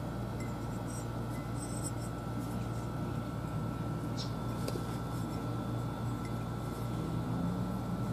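Steady low background hum with a faint high tone, and a few soft clicks and ticks about four to five seconds in as a glazed ceramic pot is turned over in the hand.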